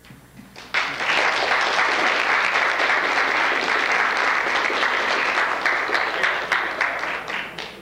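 Audience applauding, starting suddenly about a second in and thinning out into a few scattered claps near the end.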